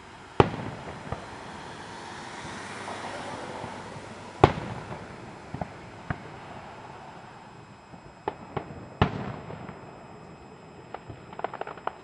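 Aerial firework shells bursting: three loud bangs about four seconds apart with smaller pops between them, and a quick run of crackling pops near the end.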